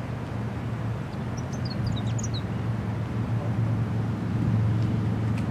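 Steady low engine drone, growing a little louder toward the end, with a few brief high bird chirps about two seconds in.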